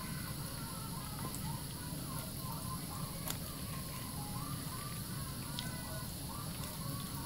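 Tap water running steadily into a bathroom sink while wet hands squeeze and rub bars of soap into lather, with soft wet squishing from the foam.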